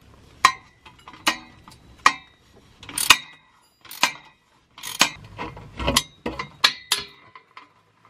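Ratcheting combination wrench loosening the exhaust flange nuts: about a dozen sharp metallic clicks and clinks, one or two a second, each with a short ringing tail.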